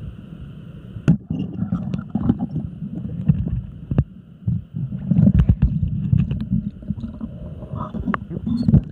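Muffled underwater sloshing and rumbling heard through a submerged camera as it moves in river water, with a few sharp clicks or knocks: about a second in, midway, and a loud one near the end.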